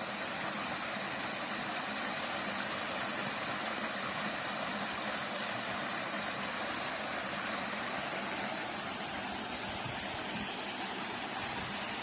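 Stream water rushing over rocks in a small cascade: a steady, even hiss of running water.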